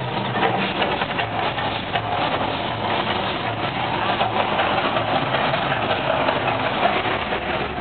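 Firework fountain (a 'volcano') spraying sparks: a steady crackling hiss of many fine pops with no break.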